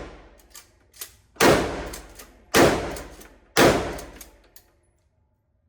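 Three shotgun shots from a pump-action shotgun firing birdshot, about a second apart, each followed by a decaying echo off the range walls. A couple of faint clicks come before the first shot.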